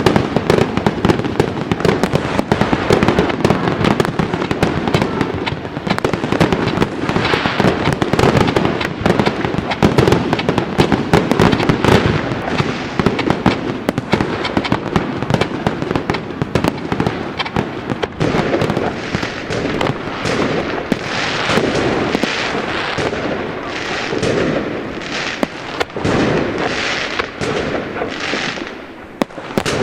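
Fireworks going off: a dense barrage of rapid crackling and bangs, giving way in the last third to a series of separate bursts about one a second.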